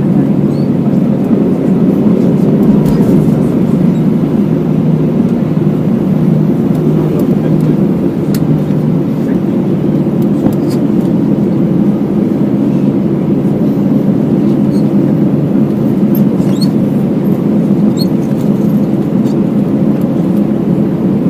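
Cabin noise of a taxiing Airbus airliner heard from inside near a window: the jet engines run at low power with a steady, even hum, with a few faint light clicks now and then.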